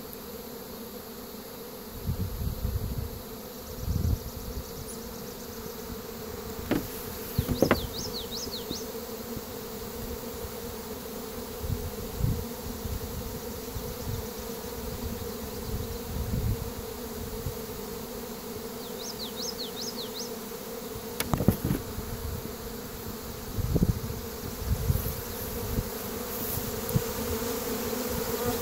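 Steady, dense buzzing of a swarm of honeybees flying in the air and around a hive, with occasional low bumps on the microphone.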